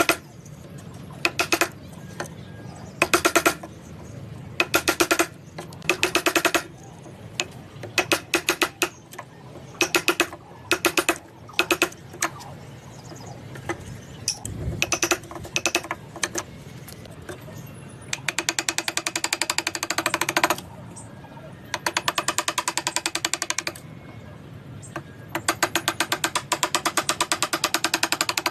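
A power tool with a rapid, hammering action running in repeated on-off bursts. The bursts are short and choppy at first, then come as three longer runs of about two seconds each in the second half.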